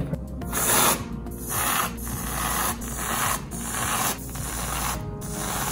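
Aerosol can of whipped cream being dispensed in a run of short hissing spurts, about one a second, as dollops are piped onto a cake.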